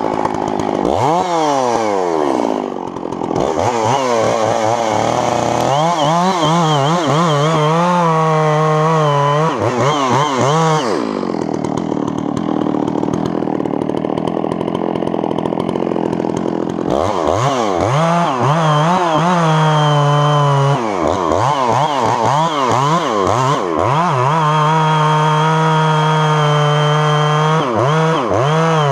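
Chainsaw with a 28-inch bar running at high speed through a felling cut, its engine pitch repeatedly rising and dipping as the throttle is worked and the chain loads up in the wood. A rougher, noisier stretch comes about halfway through before the saw settles back to a steady high speed.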